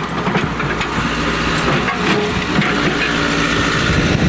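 1974 Case 580B backhoe's engine running steadily, with scattered cracks and crunches as the bucket crushes a chair.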